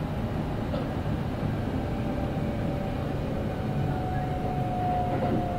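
Kintetsu 9030 series electric train running, heard inside the passenger car: a steady low rumble, with a thin steady whine that joins about halfway through.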